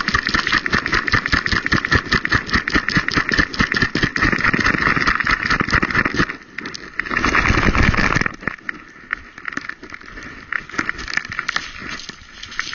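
Rapid rustling and knocking of a camera mounted on a moving dog, fur and the mount rubbing against the microphone. A louder stretch of rubbing comes about six and a half seconds in, then it turns quieter and sparser.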